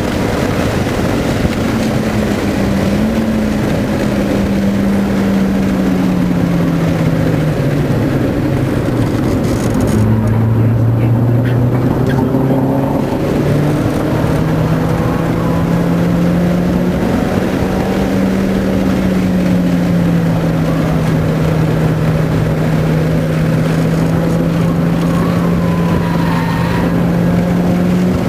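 Car engine heard from inside the cabin while lapping a racetrack, its note falling and rising with throttle and gear changes over steady road and wind noise. The pitch sinks over the first several seconds, drops lower and louder about ten seconds in, then climbs and holds fairly steady.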